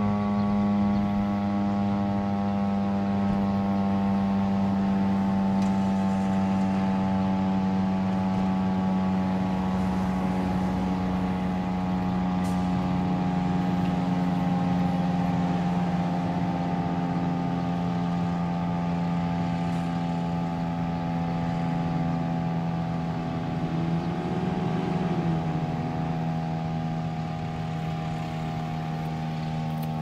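Federal Signal STH-10 outdoor warning siren coasting down after its test signal: a low, many-toned hum whose pitch sinks very slowly as the rotor winds down.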